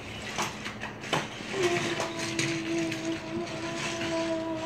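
A train-horn-like tone, held steady for about three and a half seconds from about a second and a half in, after a few sharp clicks and knocks.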